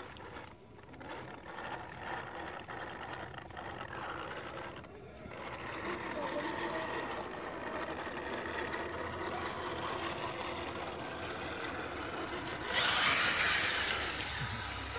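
Electric motor and gears of an RC scale crawler truck running as it drives through a muddy water-filled rut. A louder rush of noise sets in about thirteen seconds in.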